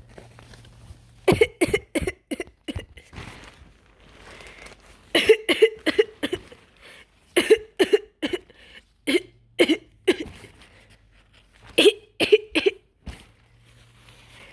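A person coughing in repeated fits, each a quick run of about three to six sharp coughs, with short pauses between the fits.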